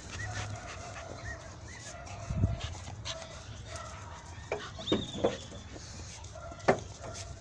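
Staffordshire bull terrier puppies at play: short high squeaks and thin whines on and off, with a few sharp knocks and scuffles.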